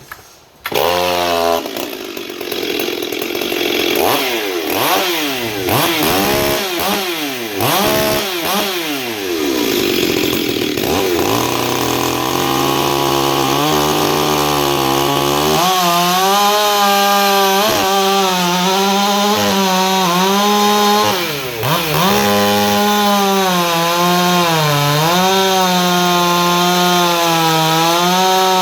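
Ported Stihl 044 two-stroke chainsaw with a custom exhaust starting about half a second in and revving up and down several times, then cutting into dry Douglas fir: the engine note holds under load, wavering and dipping as it works through the wood, and it stops just before the end.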